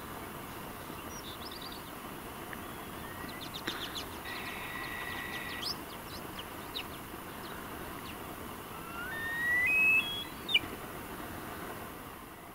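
Open-air hiss with a few high, steady whistled bird calls; about nine seconds in a whistle rises in steps and is the loudest sound, followed by a sharp click.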